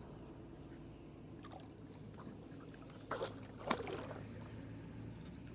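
Faint water sounds around a small boat over a steady low hum, with two short knocks or splashes, one a little after three seconds in and one about half a second later.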